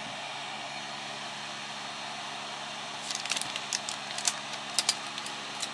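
Hot-air soldering station's fan blowing steadily, a hiss with a faint low hum. From about halfway through come scattered sharp clicks and crackles.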